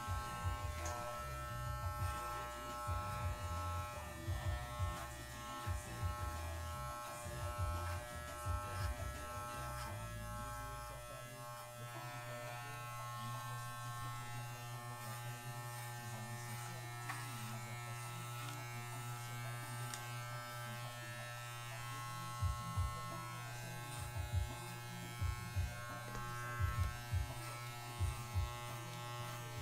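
Electric dog grooming clippers buzzing steadily as they clip a miniature schnauzer's coat around the head and neck. Irregular low bumps from the clippers being handled and moved against the dog come and go.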